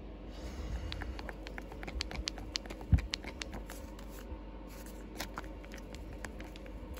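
Parchment paper rustling and crackling in quick, irregular clicks as a freshly ironed embroidered patch in its paper is fanned to cool the adhesive before peeling, with one low thump about three seconds in.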